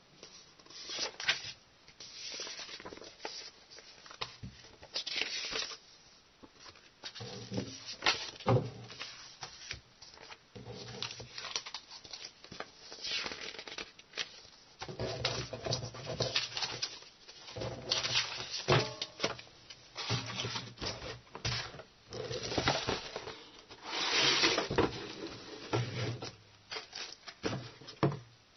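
Sheets of paper rustling and flapping as printed leaflets and a manual are handled and leafed through, in irregular short bursts with occasional sharp clicks.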